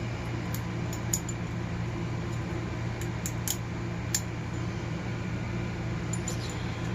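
A steady low hum with a handful of faint, sharp metal clicks scattered through it, from a small tool picking inside a padlock body to free its shackle spring.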